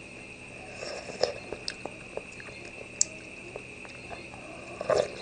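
A person chewing a mouthful of soft duck blood and noodles, with small wet mouth clicks scattered throughout and a louder burst of mouth noise near the end. A steady high whine runs in the background.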